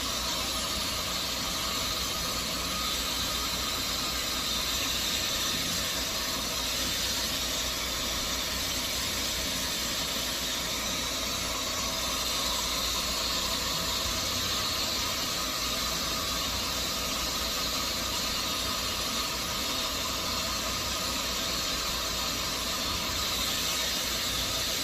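Hair dryer running steadily, blowing hot air with a constant airy hiss.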